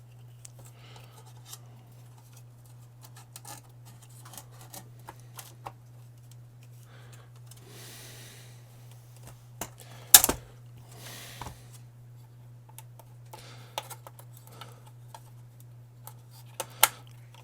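Xbox One S disc drive and plastic console housing being handled and fitted together: scattered light clicks and rubbing, with one sharp click about ten seconds in and two more close together near the end. A steady low hum runs underneath.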